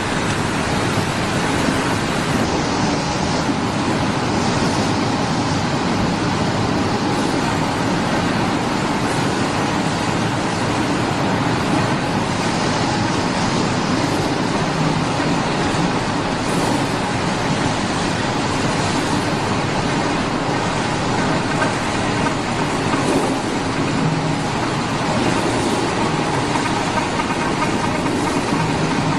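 Steady, loud machinery noise of a potato-processing line running: an even rush with a faint hum underneath and no distinct strokes or events.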